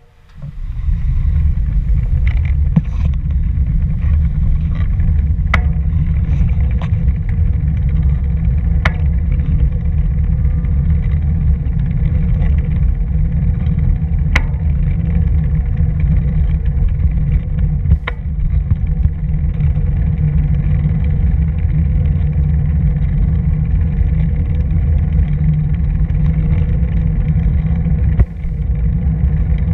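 Steady low rumble of wind buffeting the microphone and road vibration on a camera moving along a paved path, with a few sharp clicks or knocks now and then.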